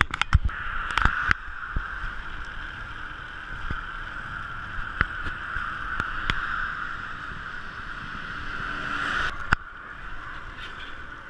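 Steady rushing of wind and tyre noise from road bicycles riding at speed on asphalt, with a few sharp clicks. The sound drops in level about two seconds before the end.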